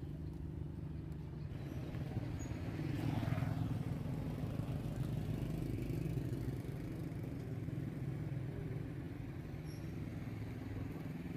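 Motorbike engines running, a low steady drone that swells louder about three seconds in.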